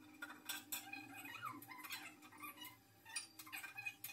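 Faint clicks and knocks of small coconut pieces and a plastic blender jar being handled, mixed with a few short squeaky sliding sounds.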